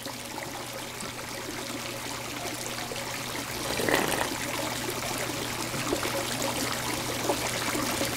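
Hot tub water churning and bubbling steadily over a low steady hum, with a brief louder swell about four seconds in.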